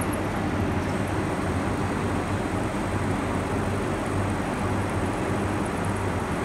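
6T12F20 vertical knee-type milling machine running: a steady hum from the spindle drive as the end mill cuts a workpiece clamped in the vise while the table feeds.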